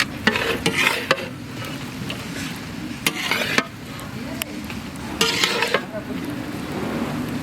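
Fried rice with chicken being stirred and tossed in a large wok over the fire. A metal utensil scrapes the pan in three bouts of strokes about two seconds apart, over a steady sizzle.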